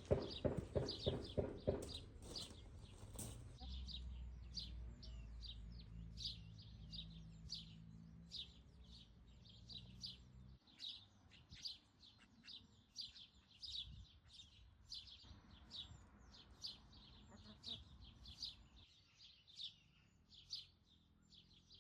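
Ducklings peeping: a rapid string of short, high chirps, several a second. A quick run of knocks comes in the first three seconds, and a low hum from about four to ten seconds in.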